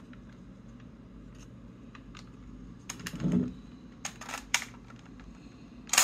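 Hard plastic toy parts clicking and knocking as the DX XGeats Raise Buckle is handled and fitted onto the Desire Driver belt: scattered light clicks, a dull knock about three seconds in, then a quick run of sharp clicks.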